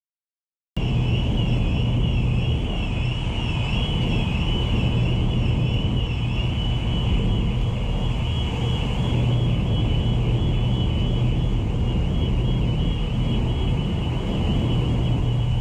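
Car ferry's engines running with a steady low hum under wind noise, with a high wavering whistle over the top. It starts abruptly just under a second in.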